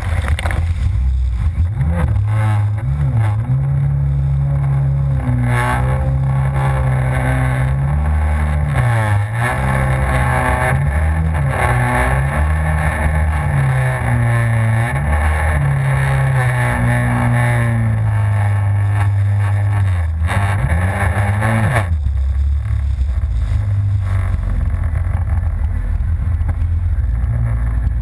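Yamaha FZS WaveRunner's four-stroke engine running hard, its pitch rising and falling again and again as the throttle is worked over the waves. About 22 seconds in the engine note drops away, leaving a low, even rumble.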